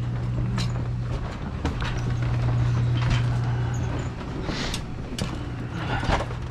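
Wheels of a cart loaded with cases rolling and bumping over wooden floorboards, with knocks and rattles from the load. A steady low hum, typical of store coolers, fades out about four seconds in.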